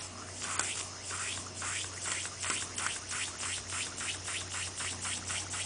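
Weeden toy steam engine running under steam, its exhaust puffing in a steady rhythm that quickens as the engine speeds up, from about two or three puffs a second to about five.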